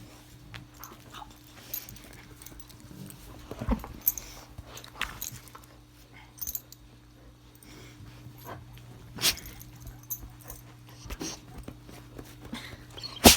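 A dog making small sounds, among scattered clicks and knocks over a steady low hum, with louder knocks about 4 and 9 seconds in and at the very end.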